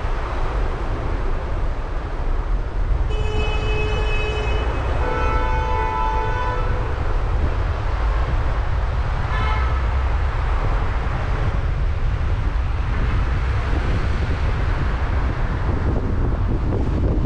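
Steady road and engine rumble of a car driving in city traffic, with a vehicle horn sounding three times: about three seconds in, again for a couple of seconds around five seconds in, and briefly near ten seconds.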